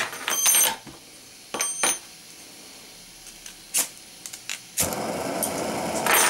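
Metal clinking and ringing as the pot supports of a Primus screw-on canister gas stove are handled, then a few clicks and the burner lights just under five seconds in, hissing steadily with gas flowing at a high setting.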